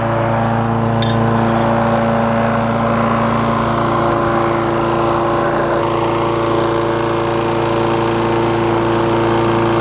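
Walk-behind gasoline lawn mower engine running steadily at a constant speed.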